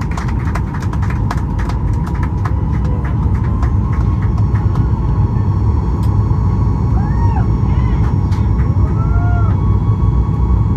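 Cabin noise of a Boeing 737-8 MAX climbing out after a go-around: a steady low rumble from its CFM LEAP-1B engines at climb power, with a steady whine above it and light clicking in the first few seconds.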